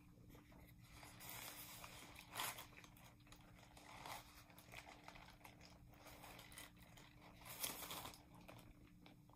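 Crinkling of a paper sandwich wrapper and quiet biting and chewing of a croissant sandwich, with two louder crinkles about two and a half seconds in and near the end.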